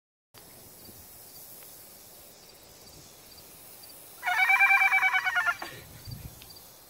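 Outdoor ambience, then a horse whinny with a fast fluttering quaver, loud and lasting about a second and a half, a little past halfway through. A few soft low thumps follow.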